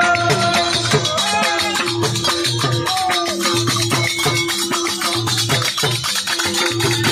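Music with a steady low drum beat, a fast shaker-like rattle and a held drone note.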